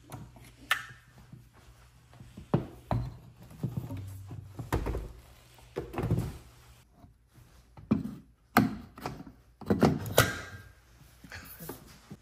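An EV charging connector and its heavy cable being handled at a wall-mounted charger: a dozen or so separate knocks and clicks at irregular intervals as the plug is lifted from its holster and the cable is moved.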